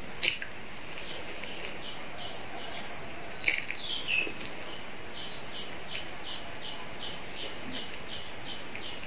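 Mouth sounds of someone eating pizza, with a few loud wet bites and smacks near the start and again about three and a half seconds in, over a steady hiss. In the second half a bird chirps in a steady run of short high notes, about three a second.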